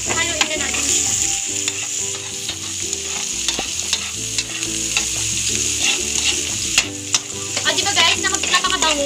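Chopped onion and garlic sizzling in hot oil in an aluminium wok, stirred and scraped with a spatula, with scattered clicks of the spatula against the pan.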